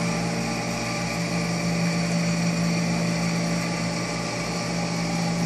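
Steady mechanical hum of a shop's reef aquarium equipment: water pumps and their motors running with a constant low drone and a wash of noise.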